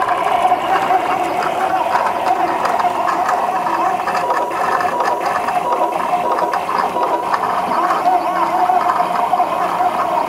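Stepper motors of a homebuilt Tantillus Plus 3D printer driving the print head through a high-speed print. A steady warbling whine whose pitch keeps wavering as the axes change speed and direction.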